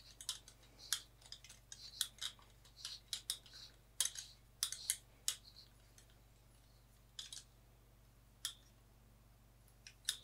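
Small metallic clicks and scrapes of a condenser microphone being twisted and fitted onto the mount of its stand, rapid for the first five seconds or so, then a few scattered clicks.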